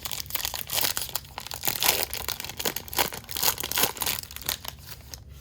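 Crinkling and tearing of the wrapper of a jumbo hobby pack of 2018 Bowman Draft baseball cards as it is ripped open by hand, a dense run of crackles that stops just before the end.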